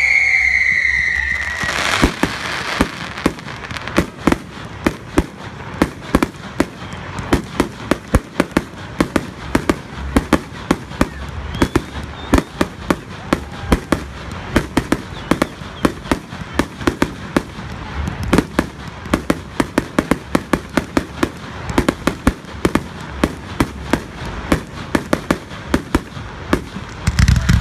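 Professional display fireworks going off: a falling whistle dies away in the first second or so, then comes a long run of sharp bangs and crackling pops, several a second.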